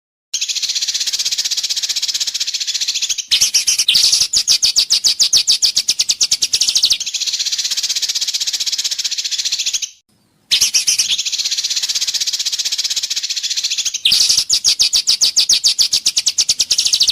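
Recorded songbird mastering song: a high continuous buzzing trill alternating with runs of rapid repeated notes, about ten a second. It stops briefly about ten seconds in, and the same phrases start over.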